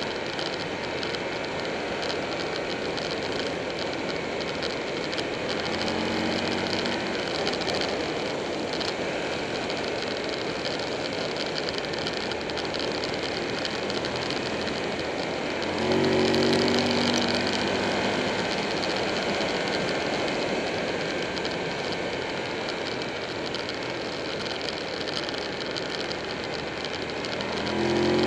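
Wind and road noise rushing past a camera on a Buell 1125R sport bike riding at speed, with the bike's 1125cc V-twin engine note coming up through it three times, loudest about halfway through.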